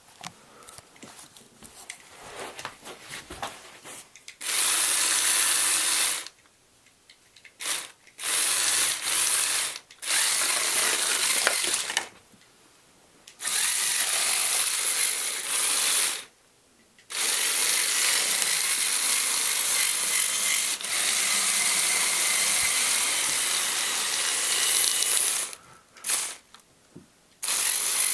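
A Lego Technic tank drives on its two Power Functions XL motors, its plastic gears and tracks making a whirring, clattering mechanical noise. After a few seconds of light clicking, it runs in spurts that stop and start several times, the longest lasting about eight seconds.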